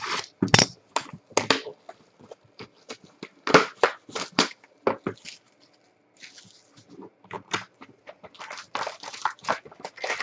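Foil trading-card packs and a cardboard hobby box being handled, crinkling and rustling in irregular bursts.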